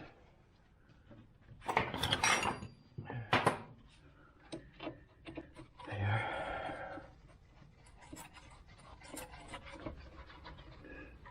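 Hand tools and metal suspension parts knocking, scraping and clicking during car front-suspension reassembly, with a short huff of breath about six seconds in.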